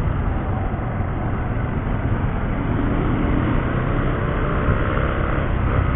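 Steady riding noise from a Bajaj Rouser 135 motorcycle moving in traffic: wind rush on the microphone over the low drone of the engine.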